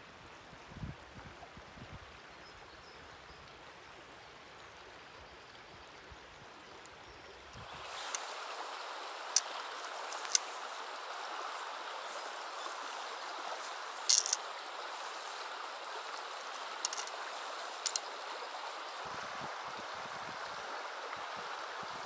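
River water flowing as a steady rush, louder from about 8 seconds in, with several sharp clicks from fishing gear being handled.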